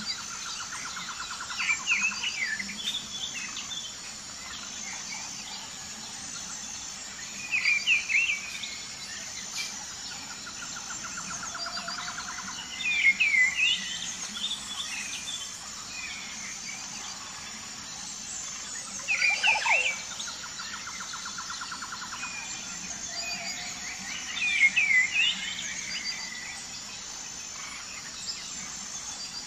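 Songbirds singing and calling in short, loud bursts of chirps every five or six seconds, with a rapid trill recurring about every nine seconds. Under them is a steady, pulsing high chirring of insects like crickets.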